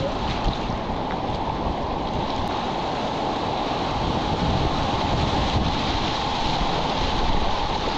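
Whitewater rushing in a steady, loud, unbroken roar, with wind buffeting the microphone.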